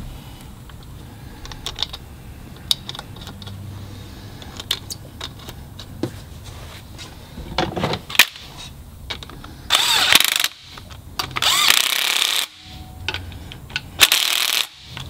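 Cordless power tool running in three short bursts, driving down the carrier bearing cap bolts on a differential housing. Before that, light metallic clicks and clinks as the bolts are started by hand.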